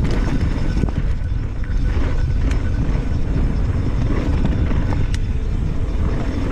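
Mountain bike rolling over a rough dirt trail: a steady low rumble of wind and tyre noise on the microphone, broken by a few sharp clicks and rattles from the bike.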